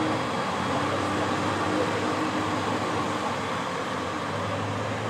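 Steady background hiss with a low machine-like hum; a deeper hum comes in about four seconds in.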